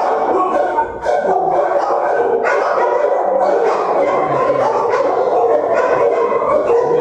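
Many dogs in a shelter's kennel block barking at once, a steady din of overlapping voices with a brief lull about a second in.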